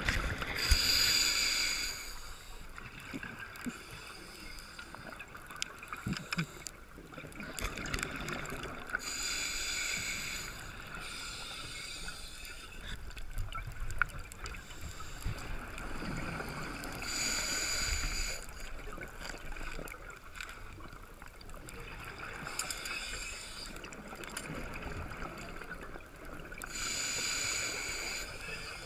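Underwater, a scuba diver's regulator breathing: four exhalations, each a bubbly hiss of about two seconds, coming about every eight to nine seconds. Quieter breathing and small clicks lie between them.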